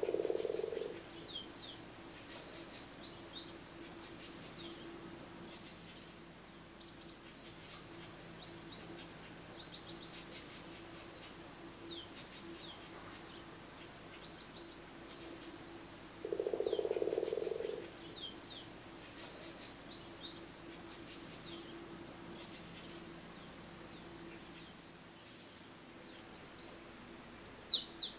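Outdoor ambience of small birds chirping in short, high, descending notes over a faint steady hum. Twice, near the start and again about 17 seconds in, a louder low call from an unseen animal lasts about a second and a half. A couple of sharp clicks come near the end.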